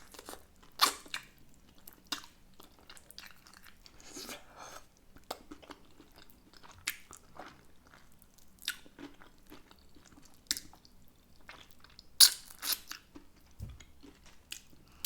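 Close-up eating sounds: wet chewing, biting and smacking of lips on saucy air-fried chicken wings, in short irregular clicks with a louder run of them near the end.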